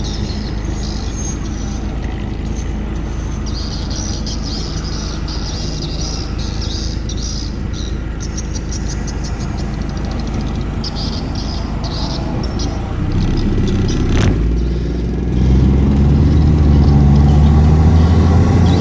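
Mitsubishi Airtrek's turbocharged four-cylinder engine running steadily, then revved: a sharp short burst of sound about two-thirds through, after which the engine note rises and stays louder to the end.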